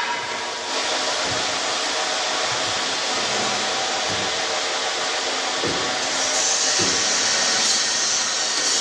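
Steady rushing noise of running tobacco-processing machinery, with a few dull low knocks scattered through it.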